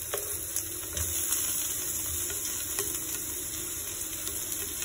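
Sliced ginger and garlic sizzling in a thin layer of hot oil in a wok, a steady hiss, with a couple of light taps from a spatula.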